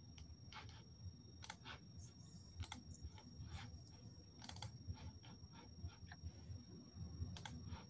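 Faint, irregular clicking of a computer keyboard and mouse, a dozen or so short taps.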